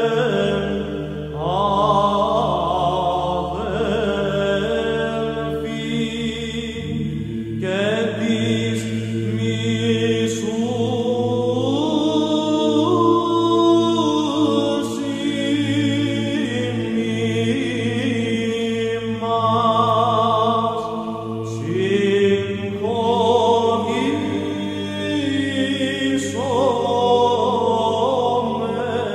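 Background music: Orthodox Byzantine-style chant, a melismatic sung line over a held drone (ison) that moves to a new pitch twice.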